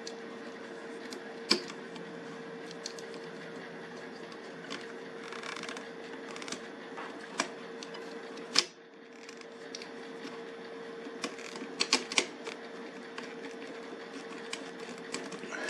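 Sharp clicks and light clatter of hands working on a garage door opener's start capacitor, pulling its wire connectors off: single clicks spread through, with a quick cluster of several clicks about 12 seconds in, over a steady faint tone.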